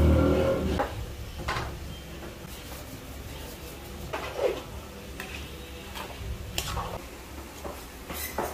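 Liquid poured from a bowl into a large metal wok, a loud rush that fades within the first second, followed by scattered knocks and clinks of bowls and utensils against the pan as seasonings are added.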